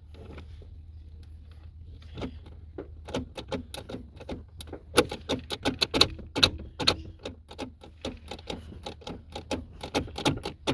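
Rapid, irregular clicks and clacks from a 2008 Toyota Sienna's sliding-door inside handle and latch mechanism being pulled and worked by hand. They come several a second from about two seconds in, over a low steady hum.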